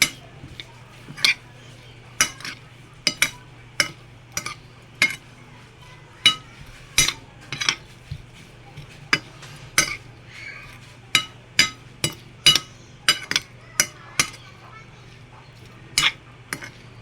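A utensil clinking against a bowl while tossing green mango salad: irregular sharp clinks with a short ring, roughly one to two a second.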